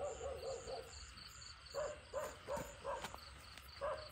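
Night insects chirping in a steady pulsing rhythm, a few pulses a second. Through it comes a string of short animal calls.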